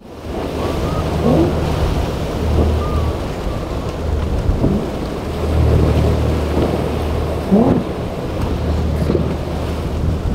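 Heavy wind buffeting the microphone over rushing spray and surf, with the low drone of high-powered outboard boat engines running fast through rough water. The engine drone swells and fades.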